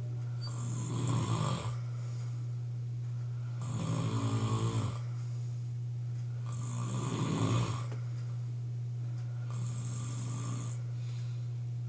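A sleeping man snoring loudly, four heavy snores about three seconds apart, each a rough rattling breath. A steady low hum runs underneath.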